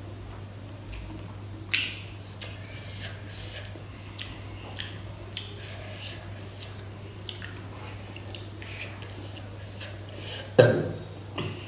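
Fingers squishing rice and kadi together and scraping the curry across a steel plate: scattered soft squelches and light ticks on the steel, over a steady low hum. A louder wet sound comes about ten and a half seconds in, as a mouthful is lifted to be eaten.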